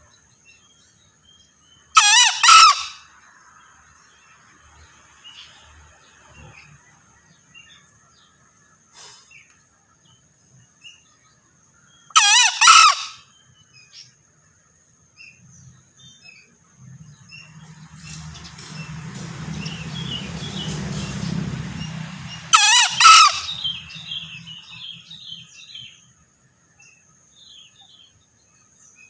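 Male green junglefowl crowing three times, about ten seconds apart, each crow a short, high, wavering call. A broad rushing noise with a low rumble swells and fades between the second and third crows.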